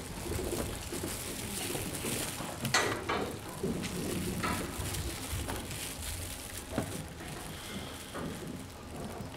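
Low background room noise with rustling and a few faint knocks, the clearest about three seconds in and again near seven seconds.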